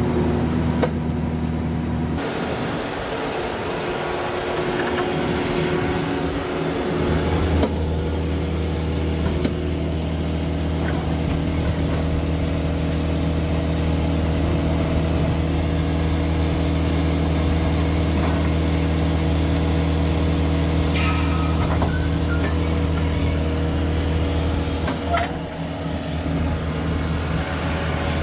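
Vermeer horizontal directional drill's diesel engine running at a steady drone. About two seconds in, the deepest part of the drone drops away for about five seconds, then comes back steady. About three-quarters of the way through there is a brief hiss.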